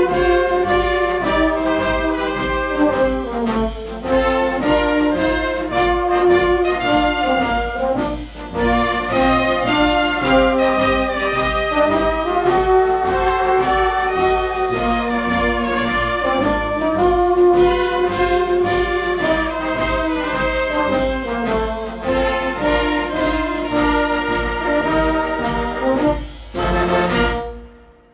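Brass band playing a march, melody over a steady even beat, which stops just before the end.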